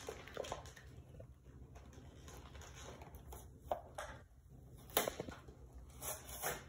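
Plastic toy packaging crinkling and rustling as hands work a blister pack open, with a few sharper crackles scattered through.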